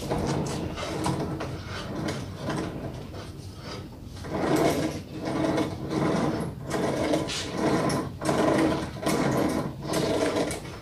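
Homemade wrist-roller rig, a stick twisted by hand to wind up a rope and chain that hoists an old car tyre, making a repeated mechanical creaking and rattling. From about four seconds in it settles into an even rhythm of roughly two strokes a second.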